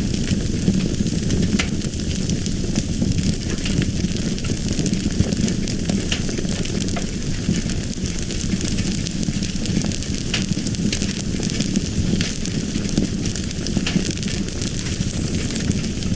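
Fire burning with a steady low rumble and frequent small crackles and pops scattered throughout.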